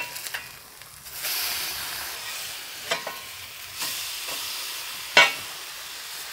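Smashed burger patties sizzling on a hot plancha while a spatula scrapes under them and flips them. The sizzle swells about a second in, and sharp scrapes and clacks of the spatula on the griddle come around three seconds, four seconds and five seconds in.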